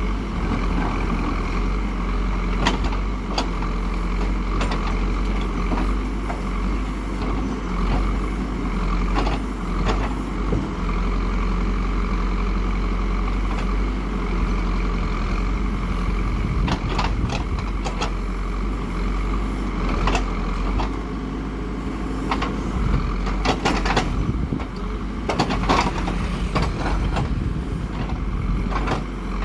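Heavy diesel construction machine running steadily under work, with scattered short metallic clanks and knocks.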